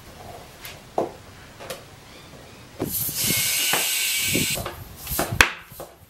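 Compressed air hisses for about two seconds while a tubeless mountain-bike tyre is inflated on its rim. It is surrounded by short knocks from handling the wheel and tyre, the loudest a sharp knock a little after five seconds in.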